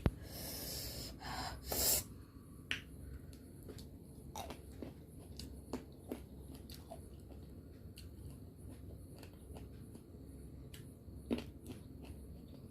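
Close-up mouth sounds of a person eating grapes: a breathy sniff or exhale in the first two seconds, then scattered small wet clicks and smacks of chewing.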